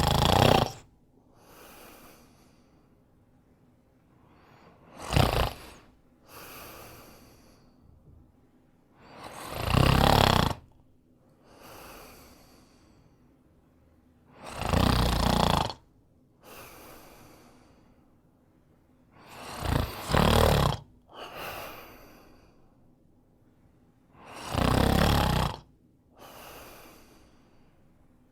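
A man snoring in a slow, regular rhythm: a loud snore about every five seconds, each followed by a softer, shorter breath. About two-thirds of the way through, one snore comes as two quick pulses.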